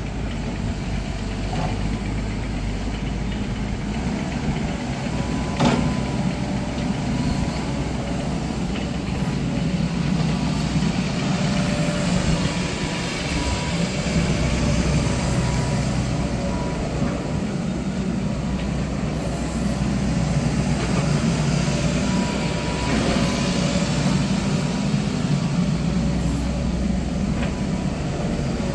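A JH65 excavator's 43 kW Kubota diesel engine running steadily, with a thin high whine above it and a single knock about six seconds in.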